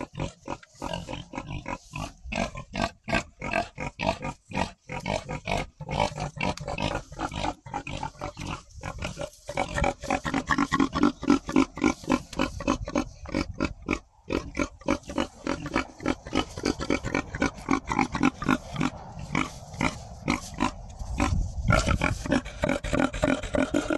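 Several pigs oinking and grunting over one another in a quick run of short calls, several a second, busier and louder from about ten seconds in.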